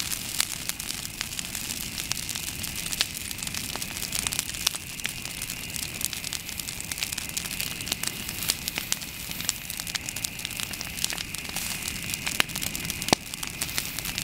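Brush bonfire of dry branches burning: a dense, irregular stream of sharp pops and crackles over a steady hiss.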